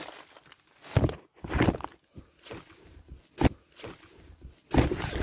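Irregular rustling and soft knocks of someone shifting about inside a tent and handling a small light, with one sharp click about three and a half seconds in.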